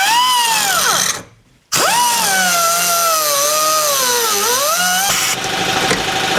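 Angle grinder cutting through a steel door hinge pin. Its whine stops briefly about a second in, starts again and drops in pitch as the disc bogs down in the cut, then settles into a steadier grinding hiss near the end.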